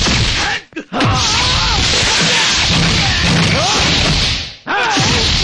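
Movie fight-scene sound effects: punch and kick impacts and whooshes with men shouting and grunting, in a dense, loud mix. The sound cuts out briefly twice.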